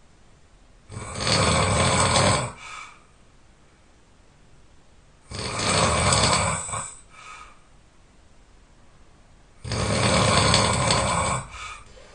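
A person snoring loudly: three long snores about four seconds apart, each followed by a brief fainter breath.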